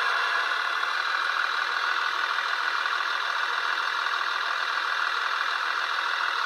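Märklin LINT model railcar's sound decoder playing a steady diesel engine idle through its small built-in loudspeaker while the model stands still.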